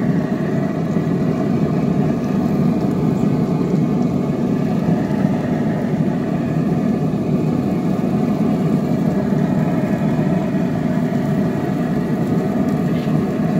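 Steady mechanical hum at a constant level, low and even with a few faint steady tones in it.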